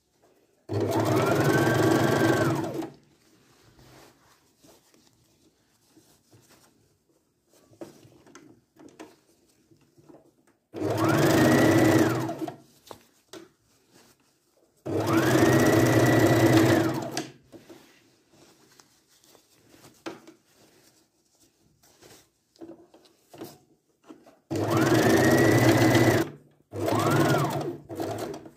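Electric sewing machine stitching a zipper onto fabric in five short runs of about two seconds each. In each run the motor whine rises as it speeds up and falls as it stops, with faint handling of the cloth in the pauses.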